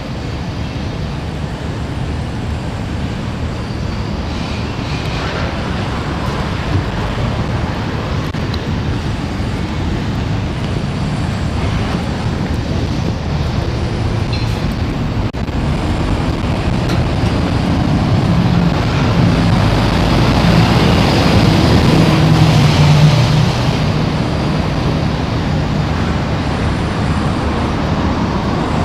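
Steady rumble of a Singapore MRT train running, growing louder to a peak about three-quarters of the way through, then easing off somewhat.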